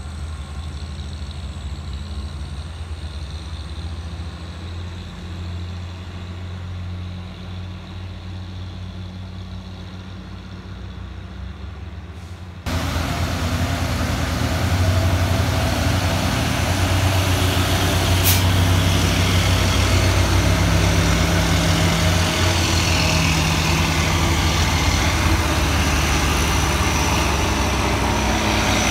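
Diesel engines of heavily loaded trucks running with a steady low drone. About thirteen seconds in, the sound jumps to louder, closer truck engines as the trucks pass, with a brief high-pitched sound about eighteen seconds in.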